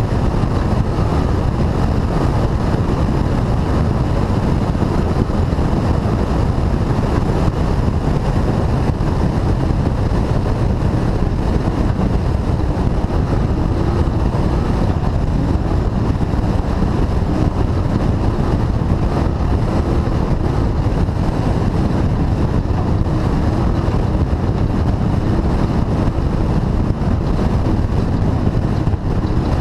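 Onboard sound of a Class 2000 off-road race car at speed: a loud, steady engine and driving noise that does not let up, with wind on the microphone.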